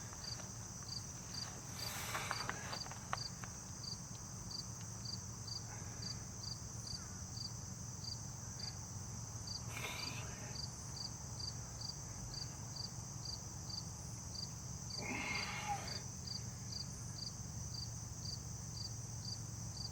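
Insects chirping in an even rhythm, a little under two chirps a second, over a continuous high buzz, with a low steady hum beneath.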